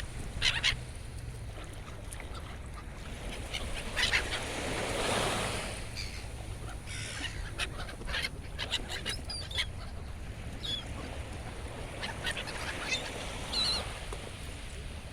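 Seagulls crying repeatedly, many short calls, over the wash of waves and a low wind rumble.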